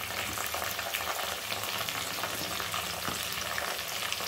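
Chopped onions frying in hot oil in an unglazed clay pot: a steady sizzle with fine crackling.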